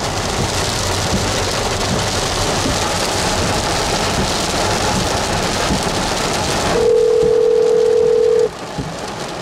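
Steady hiss of background noise, then about seven seconds in a telephone ringback tone on speaker sounds once for nearly two seconds: the outgoing call is ringing.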